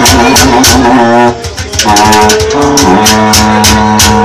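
Live band playing loud: long held, droning notes over a steady beat of sharp cymbal or shaker strokes, with the held notes changing pitch about halfway through.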